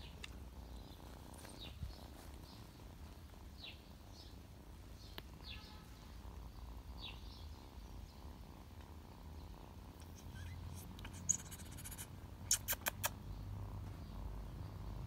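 Quiet garden ambience: a steady low rumble under faint, short, falling bird chirps every second or two. About two-thirds of the way in there is a quick run of four sharp clicks.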